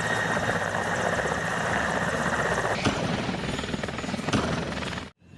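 Helicopter sound effect: steady rotor and engine noise that cuts off suddenly near the end.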